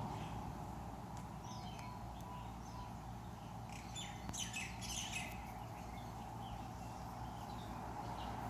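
Small birds chirping in short, scattered calls, busiest about four to five seconds in, over a steady low background hum.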